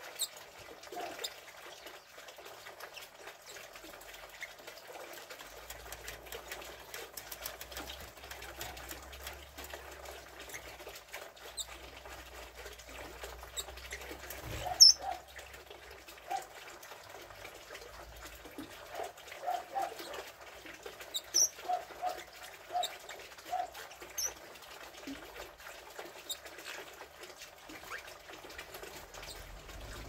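Red-rumped parrots in an aviary giving short, soft chirps and twitters, with a run of quick notes a little past the middle. One sharp, loud sound comes about halfway through, with a high squeak in it.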